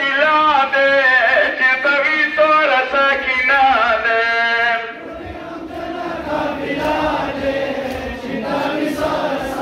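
A man's voice leads a Shia mourning chant (noha) over horn loudspeakers, in a strong, wavering melody. About five seconds in, the lead drops away and a crowd of men's voices chants more quietly, with faint regular strikes of hands beating on chests (matam).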